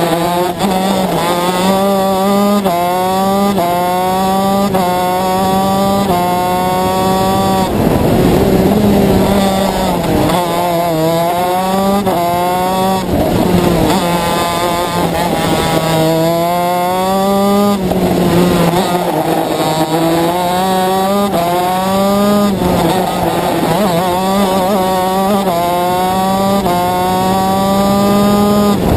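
A shifter kart's two-stroke engine heard from onboard at racing speed. It revs up through the gears in quick upshifts, each a short rising whine that breaks and climbs again, and it drops back with a rougher note when braking and downshifting for corners. This pattern repeats several times.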